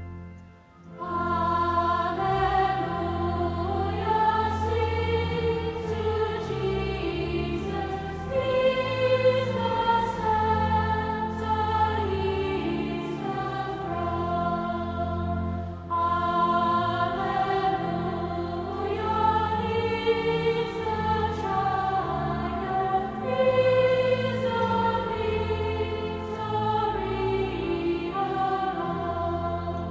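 Choral hymn music: a choir singing a slow, sustained melody over held low accompanying notes, starting about a second in after a brief gap.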